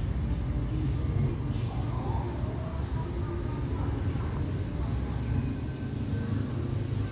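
Insects, likely a cicada chorus, droning in one steady high-pitched tone over a low rumble.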